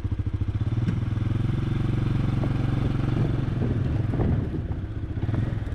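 ATV engine running steadily, with a fast even firing rhythm. It starts abruptly right at the beginning.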